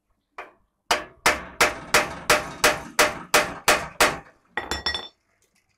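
A hammer striking metal at a bicycle's pedal crank: about ten sharp blows, roughly three a second. Near the end come a few quicker metallic clinks with a ringing tone.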